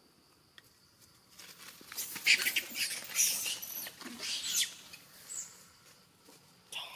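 Dry leaf litter rustling and crackling under long-tailed macaques moving about. It is busiest for a few seconds in the middle, with a short louder sound near the end.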